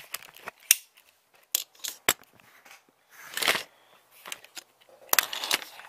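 Handling noise close to the microphone as a camera is picked up and moved: a few sharp clicks in the first two seconds, then a short rustling scrape about three and a half seconds in and another with clicks near the end.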